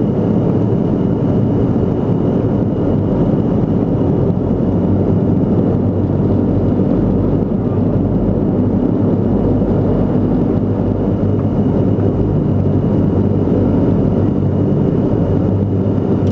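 Antonov An-22's four turboprop engines with contra-rotating propellers running steadily, heard inside the cockpit on final approach. A loud, even low drone with a faint high whine.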